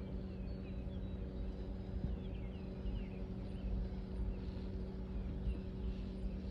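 Small birds chirping in short, quick, pitch-bending calls over a steady low motor hum and a low rumble.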